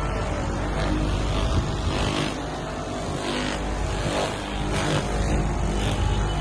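A steady low hum with several brief rustling swishes over it.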